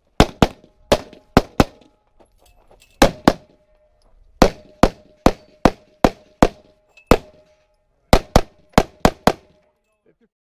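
Handgun fired in rapid strings of two or three shots, about nineteen shots in all with short pauses between strings, and a faint ringing tone hanging under the shots; the firing stops near the end.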